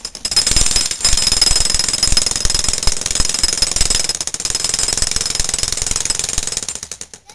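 Jackhammer running with rapid, continuous hammering, breaking up a concrete sidewalk. It pauses briefly about a second in, then runs steadily and stops just before the end.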